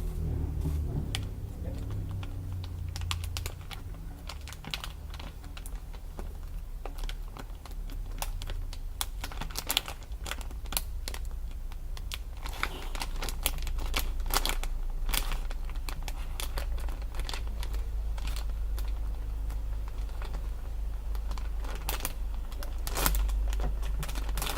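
Plastic packaging being handled: irregular light clicks and crinkles, coming more often in the second half, over a steady low hum.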